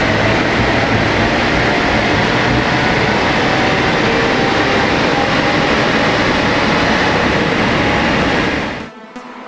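BMW X1 18d's 2.0-litre four-cylinder turbodiesel running hard under load on a chassis dynamometer during a power run, a loud steady mix of engine, tyre-on-roller and fan noise. It drops away sharply near the end.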